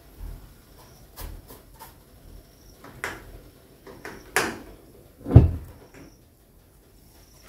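A hand dabbing and spreading thin batter in a nonstick frying pan: a handful of short knocks and scrapes. The loudest is a dull thump about two-thirds of the way in.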